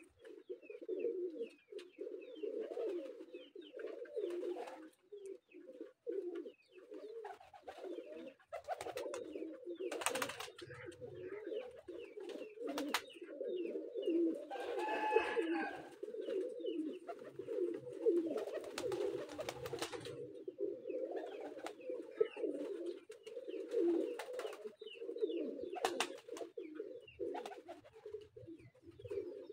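A flock of domestic pigeons cooing continuously, many voices overlapping into a steady low murmur, with scattered sharp clicks and rustles. A brief higher-pitched tone comes about halfway through.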